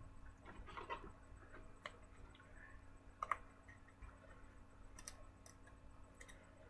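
Faint, scattered clicks and light rustles of trading cards being handled, with one sharper click about three seconds in.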